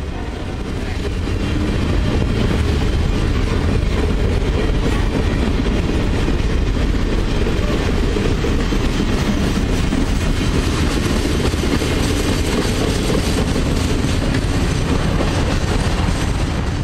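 Train of Triple Crown RoadRailer trailers rolling past on their rail bogies: a steady loud rumble of wheels running on the rails.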